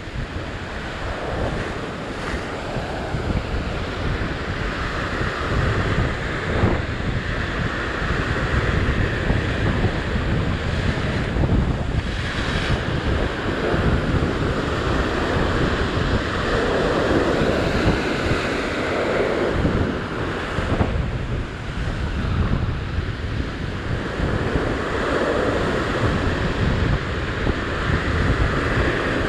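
Ocean surf breaking and washing over the rocks, a steady rush that swells and eases every few seconds, with wind buffeting the microphone.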